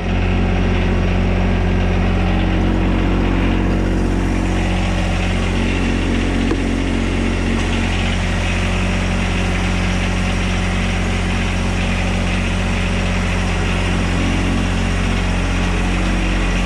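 John Deere compact tractor engine running at a steady idle, with an even, unchanging drone.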